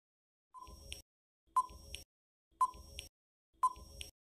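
Quiz countdown-timer sound effect: a quiet tick-tock about once a second, each beat a short click followed by a fainter second click.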